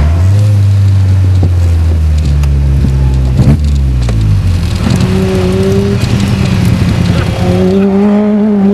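Seven-style open sports car's engine heard from the cockpit, running at low revs with a deep steady note, then pulling to higher revs in the second half and climbing again near the end. A short knock about three and a half seconds in.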